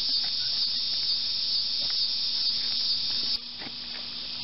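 Steady high-pitched pulsing chorus of insects, typical of crickets at dusk, over a faint steady hum. The chorus drops abruptly in level a little over three seconds in.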